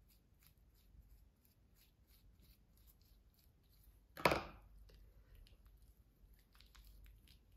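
Faint rustling and soft squelching of a hair-dye tint brush and dye-covered gloved fingers working colour through wet hair, in many small strokes. One louder, brief scrape comes about four seconds in.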